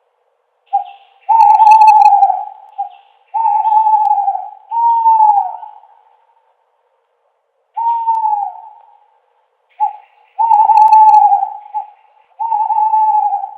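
Owl hooting in two series, each a short note followed by several longer hoots that dip slightly in pitch, with silence between the series.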